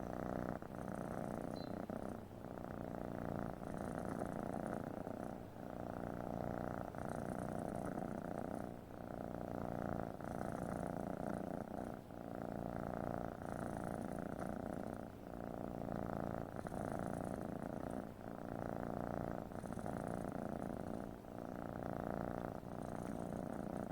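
Domestic cat purring steadily, the purr swelling and easing with each breath about once every three seconds.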